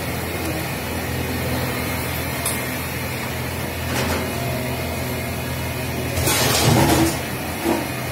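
Steady low hum of running machinery, with a brief loud rushing noise about six seconds in.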